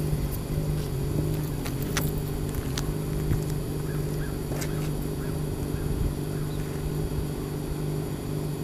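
DJI F550 hexacopter's six brushless motors spinning at idle on the ground, a steady low hum with a few faint clicks.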